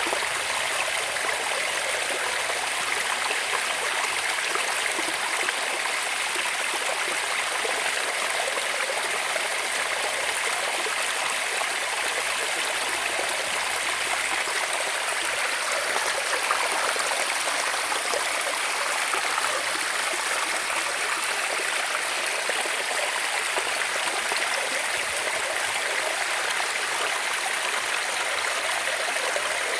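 Running water flowing steadily, an even rush with no break.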